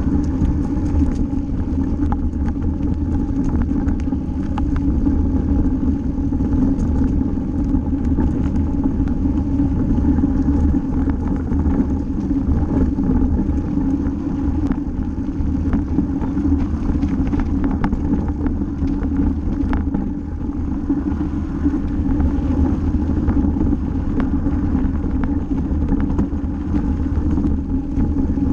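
Mountain bike rolling over a dirt and gravel track, heard from a camera riding on the bike: a steady rumble of tyres, wind and vibration with frequent small clicks and knocks from bumps.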